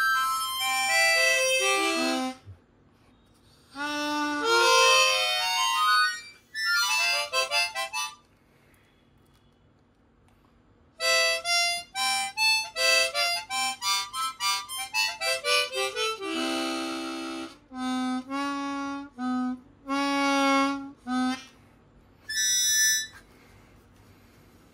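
Kongsheng KB-12 chromatic harmonica played in quick runs of single notes up and down the scale, phrase after phrase with short pauses between. About two-thirds of the way in comes a brief held chord, and later a short high chord.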